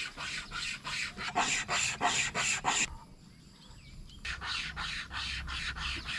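Commando wire saw rasping through the trunk of a dead tree, pulled back and forth in quick strokes, about four a second. The sawing stops for about a second near the middle, then starts again.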